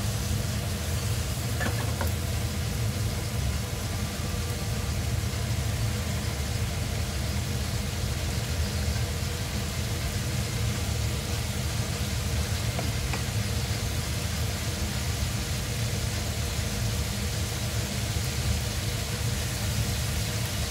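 Sausages sizzling as they fry in a frying pan, over a steady low hum.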